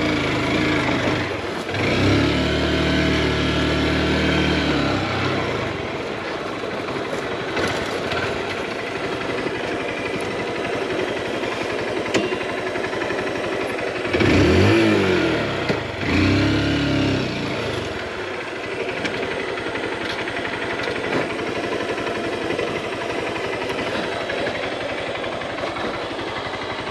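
Motorcycle engine running under load on a steep dirt climb, revving hard twice: once about two seconds in, and again around fourteen seconds in with the pitch rising and falling.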